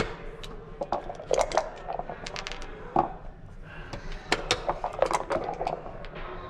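Backgammon play: a string of sharp clacks and clatters as checkers are set down and dice are rolled onto the board, with a sharp tap from the game clock at the start.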